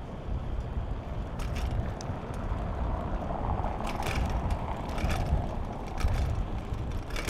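Riding a bicycle: steady low wind rumble on the microphone, with a few sharp scattered clicks and rattles from the bike.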